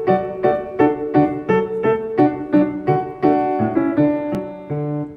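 Grand piano playing the introduction to a children's song: a steady run of struck notes and chords, about three a second, settling on a held chord near the end.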